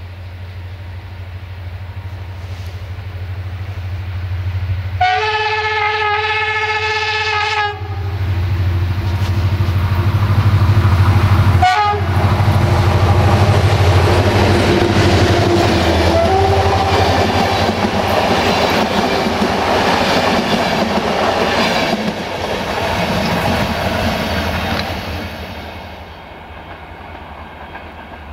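GM diesel-electric locomotive approaching with its engine running louder and louder, sounding one steady horn blast of about three seconds, then passing close with the engine loud and the wheels clattering over the rails as the carriages roll by, fading near the end.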